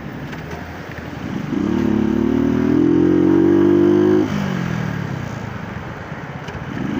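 Motorcycle engine pulling under acceleration from about a second and a half in, its pitch slowly climbing, then the throttle is closed about four seconds in and the revs fall away; it picks up again near the end.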